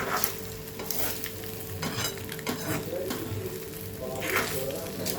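Spatula stirring and scraping through egg masala in a kadai, the masala sizzling, with several separate scraping strokes.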